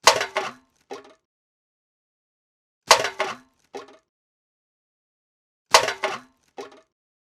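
A can being thrown away, three times about three seconds apart: each lands with a sharp metallic clatter and a few quick bounces with a little ringing, followed about a second later by a smaller clink as it settles.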